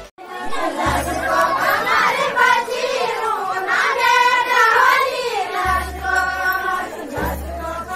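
A group of women singing a folk song together in unison, the melody rising and falling.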